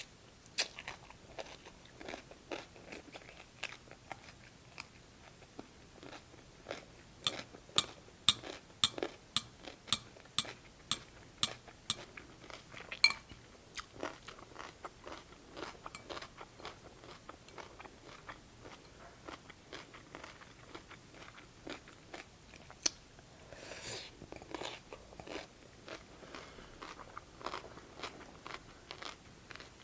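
Close-up chewing and crunching on cucumber from a bowl of cold cucumber soup. Near the middle comes a run of loud, evenly spaced crunches, about two a second, with softer chewing before and after.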